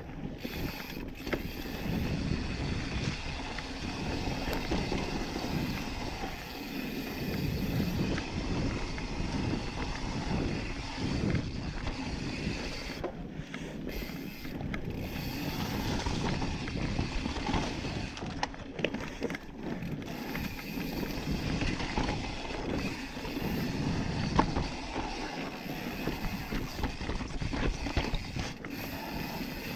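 Yeti SB5 full-suspension mountain bike descending a rough dirt singletrack: tyres rumbling over dirt and rock while the chain and frame rattle and click over the bumps, one sharper knock about 24 seconds in, with wind buffeting the camera microphone.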